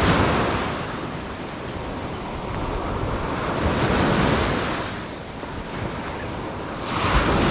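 Small surf waves breaking and washing up the beach, swelling in about every three to four seconds, with wind buffeting the microphone.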